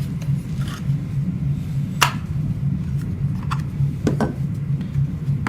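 A few sharp clicks and light knocks of small plastic parts being handled as the WiFi doorbell unit comes out of its box. The loudest click is about two seconds in. A steady low hum runs underneath.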